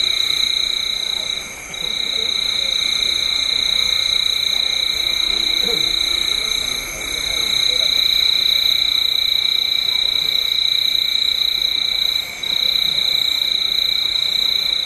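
Recorded forest ambience played as the dance's sound track: a steady, high-pitched chorus of night creatures, in the manner of frogs and insects, that drops away briefly about two, seven and twelve seconds in.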